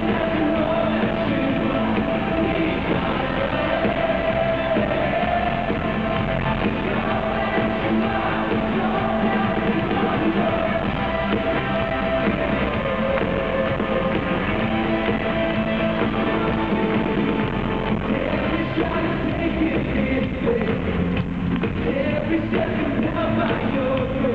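Live rock-style worship band playing through the arena's sound system: drums, electric guitar and a woman singing lead.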